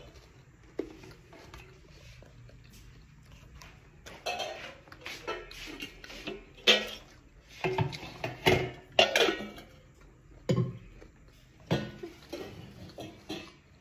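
Dishes and cutlery clattering: a run of clinks and knocks, sparse at first and busiest in the middle of the stretch.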